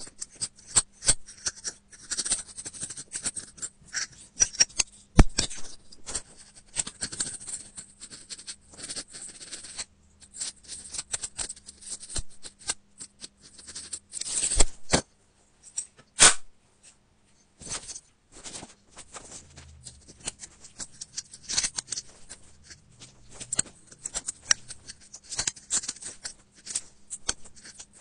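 A metal pick scraping and picking packed lint and dirt out of a phone's charging port and speaker grille holes: an irregular run of scratches and sharp little clicks, with a few short pauses.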